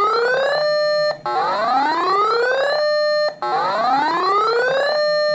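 Electronic siren alarm repeating in cycles: each rises in pitch for about a second and a half, holds steady for half a second, then cuts off sharply. It runs through about two and a half cycles.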